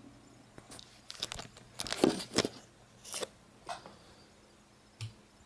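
Handling noise as the camera is set up: a cluster of short rustling knocks and scrapes over the first three seconds or so, then a few faint single clicks, over a faint low hum.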